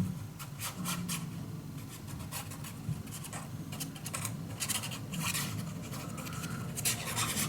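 Paper and cardstock being handled and rubbed down by hand, a run of irregular scratching and rubbing strokes as a piece is attached and pressed flat.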